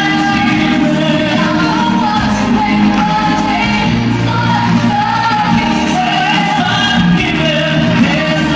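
Singers performing a pop song live on stage into handheld microphones, over loud backing music, with some shouts.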